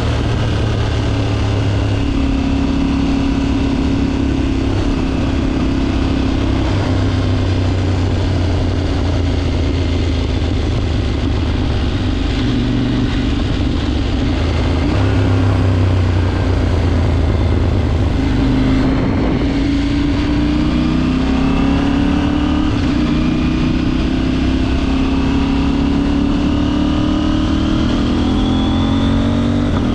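KTM 790 motorcycle's parallel-twin engine running at a steady cruise, then, after a brief drop in note about two-thirds of the way in, rising steadily in pitch as the bike accelerates.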